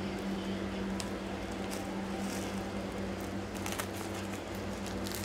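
A plastic package crinkling and rustling as hands squeeze and turn it, in a scatter of short crinkles over a steady low hum.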